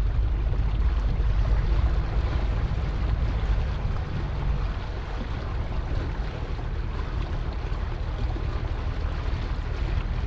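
Motor cruiser underway: a steady low engine drone with water rushing past and wind on the microphone.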